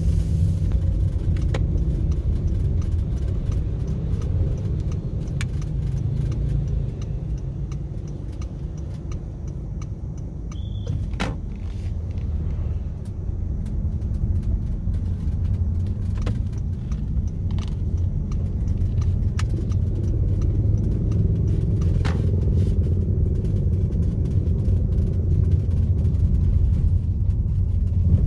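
Car interior while driving: a steady low rumble of engine and road, with scattered light clicks and rattles. The rumble drops for a few seconds near the middle, then builds again.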